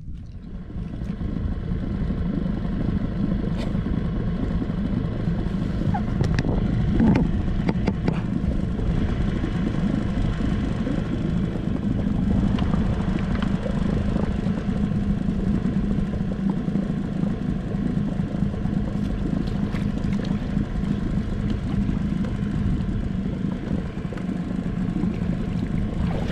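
Small boat's outboard motor running at a steady speed, its hum steady over wind and water noise, with the boat under way.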